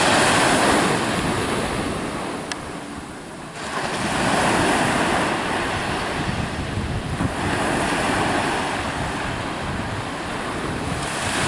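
Waves breaking and washing in, swelling and easing about every four seconds, with wind buffeting the microphone.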